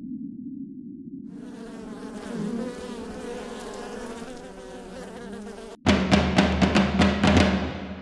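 Honeybees buzzing in a dense mass, starting about a second in over a low hum. About two seconds before the end the buzz cuts off suddenly and gives way to a fast run of drum hits, roughly five a second, that fades away.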